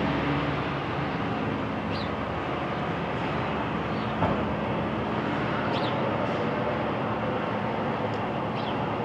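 Steady outdoor background noise with a faint hum, broken by a few short high chirps and a single sharp click about four seconds in.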